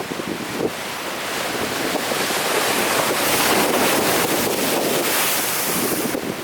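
Big ocean surf breaking and rolling along the shore as a continuous rush of water, swelling loudest around the middle.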